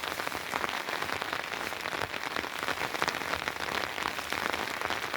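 Rain falling steadily, a dense patter of many drops.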